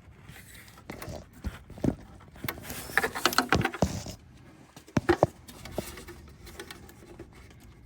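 Hands working the wiring at a Ford Super Duty's fog lamp in the bumper: irregular clicks and knocks of plastic electrical connectors being unplugged and plugged and the harness being handled, busiest in the middle with two sharp clicks about five seconds in.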